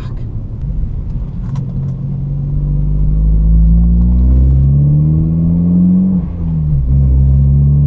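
Ford Focus ST's turbocharged 2.0-litre four-cylinder engine under way with the intercooler charge pipe blown off the throttle body: the engine note climbs slowly for a few seconds, dips twice, then holds steady over a heavy low rumble.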